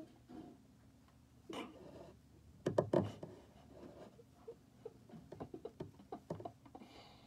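Pencil or marker strokes scratching on notebook paper: short scratchy strokes with a louder cluster around three seconds in, then many quick light ticks of small strokes.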